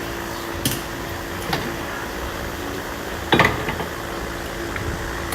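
Steady background hum of a repair shop, with a few light clicks and clinks of tools being handled, the clearest a little past halfway.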